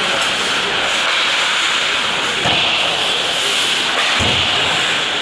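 Ice hockey play: a steady scraping hiss of skate blades cutting the ice, with stick noise, and two dull thumps, about two and a half and four seconds in.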